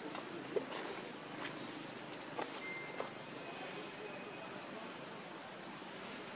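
Steady high-pitched insect trill, like a cricket, going without a break. Over it come a few sharp clicks and some brief rising chirps.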